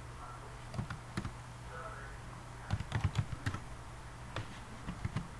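Computer keyboard being typed in short bursts of keystrokes: a few about a second in, a quicker run of about half a dozen around three seconds in, and a couple more near the end, over a steady low hum.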